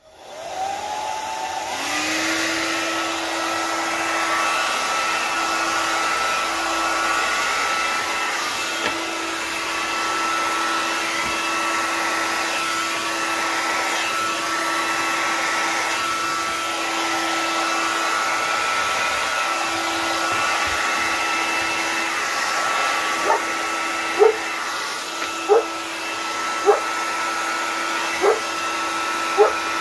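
Hand-held hair dryer switched on, spinning up over the first couple of seconds, then blowing steadily with a constant whine. Near the end a run of short, rising squeaks cuts in over it, about eight times.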